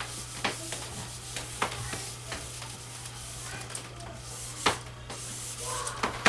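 Whiteboard eraser rubbing across a whiteboard, a steady scrubbing hiss broken by a few light knocks.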